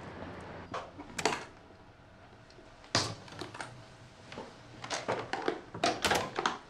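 A series of irregular clicks and light knocks, a few in clusters, like small objects being handled or keys being pressed.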